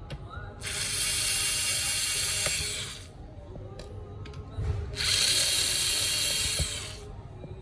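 Small electric screwdriver running twice, each time for about two seconds, a steady whirr, backing out the laptop's hinge screws.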